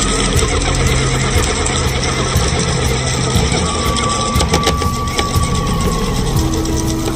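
Steady, loud engine-like running sound with a low hum, a thin high tone joining about halfway through.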